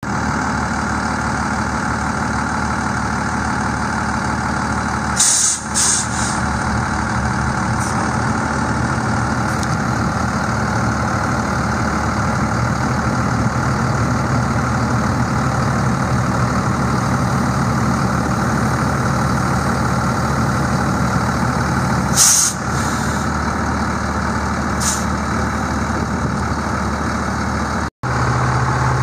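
Mercedes MBE900 6.4-litre inline-six diesel of a 2002 Freightliner FL80 dump truck idling steadily. Short bursts of compressed-air hiss from the air brake system come about five seconds in and again about twenty-two seconds in.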